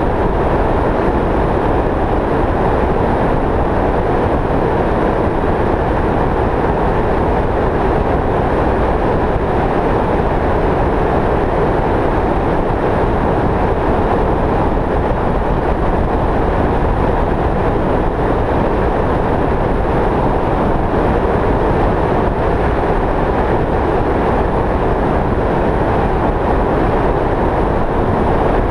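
Steady road and wind noise of a vehicle driving at highway speed, an even rushing sound with no engine note standing out and no change in level.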